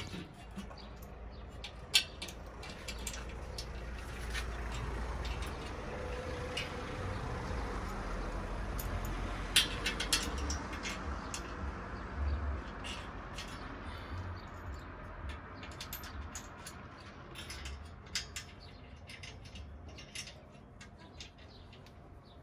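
Scattered sharp metal clicks and taps from steel air-conditioner wall brackets being adjusted and their bolts tightened, over a low rumble.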